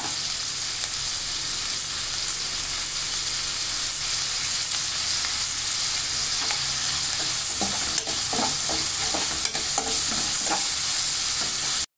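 Chopped onions and curry leaves sizzling in hot oil in a non-stick kadai, sautéing toward golden brown, while a steel spoon stirs them and scrapes the pan. The scrapes come more clearly in the second half, and the sound cuts out abruptly just before the end.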